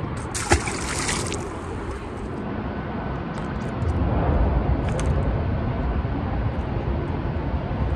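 A smallmouth bass released into the river with a splash about half a second in, then water sloshing against the rocky bank under a steady low rumble that grows louder about four seconds in.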